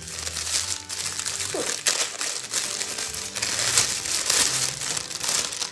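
Crinkly wrapping handled and pulled open by hand to unwrap a small gift: a dense, continuous crackle.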